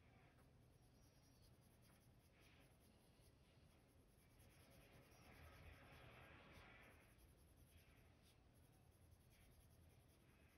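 Faint scratching of a Prismacolor colored pencil shading on paper, in a few soft strokes, the longest lasting about two seconds in the middle.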